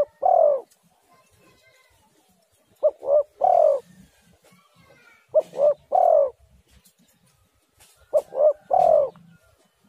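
Spotted dove (tekukur) cooing its repeated three-note call: two short coos and then a longer, arching coo. The phrase comes about every two and a half to three seconds, three full times after the end of one already under way.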